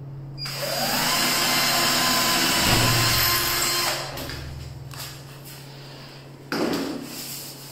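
Cordless drill spinning up and boring into the metal window frame, its whine rising as it starts, running about three seconds, then winding down. A short second burst comes near the end.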